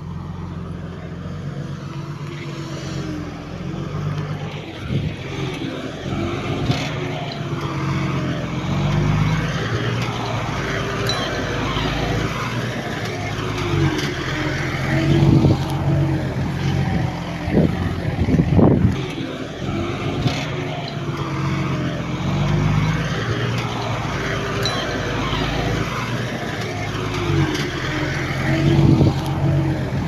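Diesel engine of heavy construction machinery running and working, its pitch rising and falling with the load, with a few sharp knocks in the second half.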